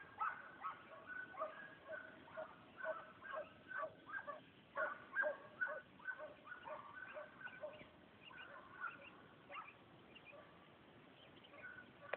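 A pack of hunting hounds (zagars) baying on the trail, faint, with short calls following one another in quick succession. The calls thin out for a second or so near the end, then start again.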